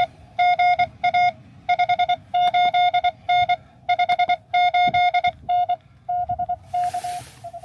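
Morse code (CW) tone of about 700 Hz from a Xiegu X6100 transceiver on the 30-metre band, keyed on and off in quick dots and dashes. The tone grows fainter towards the end, and a short burst of hiss comes about seven seconds in.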